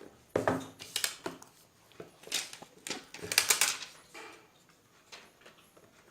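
Cardboard phone boxes being handled: a quick series of scrapes, rustles and light knocks in the first four seconds, then only a few faint taps.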